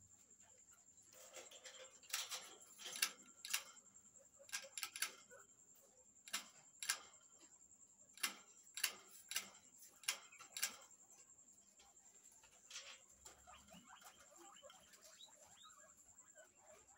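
Guinea pigs moving about in a wire cage on a plastic mesh floor: irregular sharp clicks and taps, in clusters through the first two-thirds, then softer scattered scurrying near the end.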